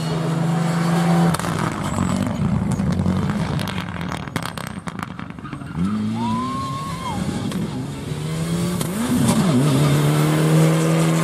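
Rally car engine revving hard through gear changes on a special stage, its pitch sweeping up and down, with sharp cracks in the middle and a loud steady high engine note near the end.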